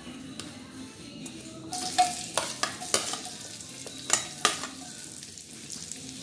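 Sliced red onions dropped into hot oil in a nonstick wok, starting to sizzle about two seconds in and sizzling on steadily. Several sharp clicks of a spoon against the plate as the pieces are scraped in.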